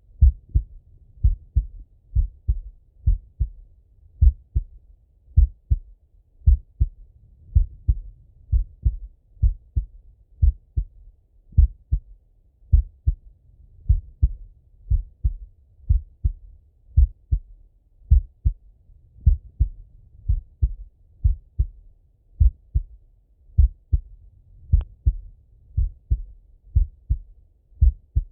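A man's slow heartbeat heard through a stethoscope: a steady run of paired low thumps, lub-dub, beat after beat. A single brief click sounds near the end.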